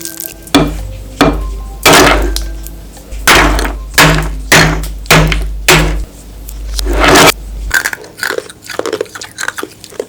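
Background music: a series of heavy drum hits over low sustained bass notes, with a rising swell that cuts off abruptly about seven seconds in, followed by softer scattered clicks.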